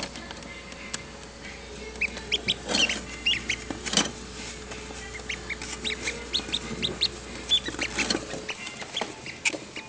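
Newly hatched ducklings peeping in an incubator: many short, high peeps in quick succession from about two seconds in. A low steady hum runs underneath and stops near the end.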